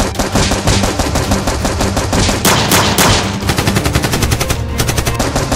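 Rapid automatic gunfire, machine-gun style, many shots a second, with a louder run of shots about halfway through. It is a dubbed-in firearm sound effect standing in for Nerf blaster fire.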